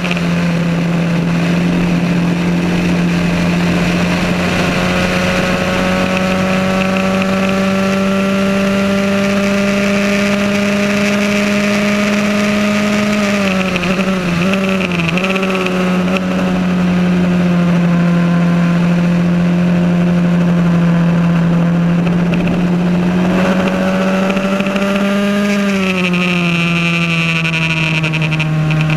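Formula Ford race car's 1600 cc Ford Kent four-cylinder engine, heard onboard, running hard at a high steady note that climbs slowly. About halfway through the note wavers and dips several times, and near the end it climbs and then drops sharply, as with gear changes.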